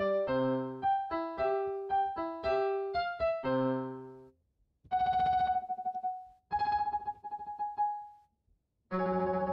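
Keyboard music: a short piano melody of quick single notes, a brief pause about four seconds in, then two long held notes, and chords starting near the end.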